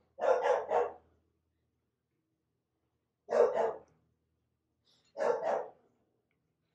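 Dog barking in three quick runs of two or three barks each, spaced a couple of seconds apart.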